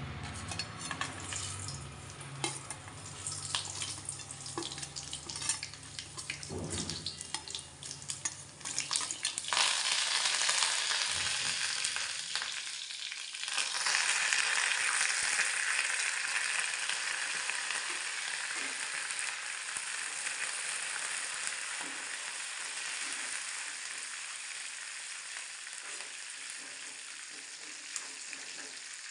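Tempering in a steel kadai: mustard seeds and garlic crackling in hot oil. A loud sizzle jumps up about ten seconds in and surges again a few seconds later as curry leaves are tipped in, then slowly dies down while the mixture is stirred with a steel ladle.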